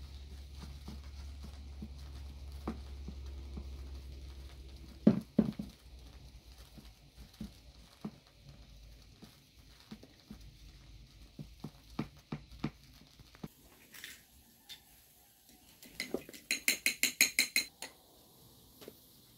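Hands pressing dough into a metal baking tray on a wooden board, with scattered soft knocks and one sharp knock about five seconds in. Near the end a spoon beats egg in a glass bowl: about a dozen quick clinks in a second and a half.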